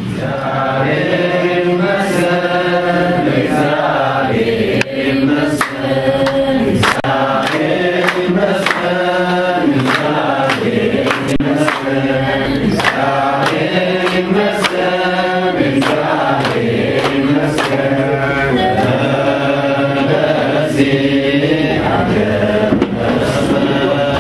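Several voices singing an Ethiopian Orthodox liturgical chant in slow, drawn-out phrases, with repeated sharp claps or knocks through it.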